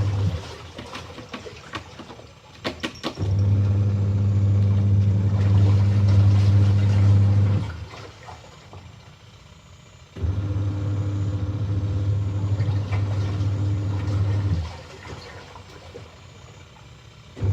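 Washing machine motor running in a wash cycle: a steady low hum in runs of about four seconds, stopping for two to three seconds between runs, as the drum or agitator turns one way and then the other. A few quick clicks come just before the first run.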